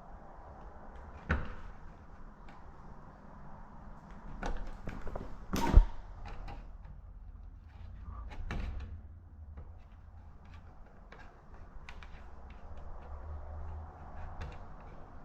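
A few sharp knocks and clunks, like a door or panel being shut, the loudest about six seconds in, with scattered small clicks over a steady low hum.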